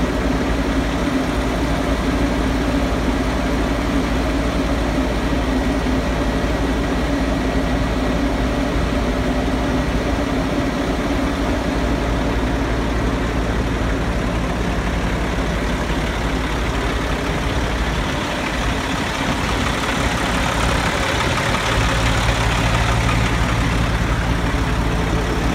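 Semi-truck diesel engine idling steadily, a low even hum, growing a little stronger in the low end near the end.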